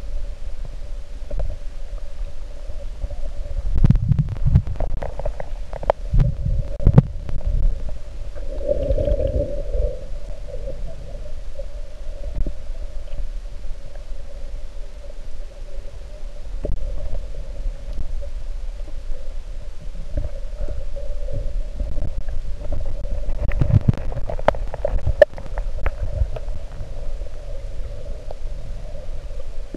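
Muffled underwater rumbling and knocking from water moving against a submerged camera as the swimmer moves, with clusters of knocks twice and a steady hum underneath.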